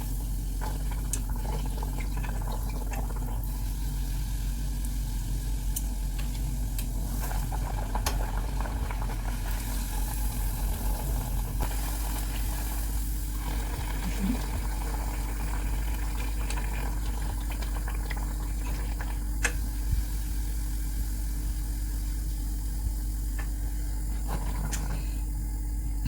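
Gnocco fritto dough frying in hot sunflower oil: a steady sizzle with scattered small pops, over a constant low hum.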